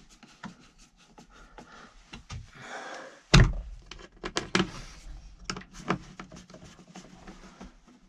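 Hand-tool work on a tractor's air-conditioning evaporator housing: scattered clicks and knocks of a screwdriver against the plastic housing and its parts, with a short scrape and then one loud thunk a little over three seconds in.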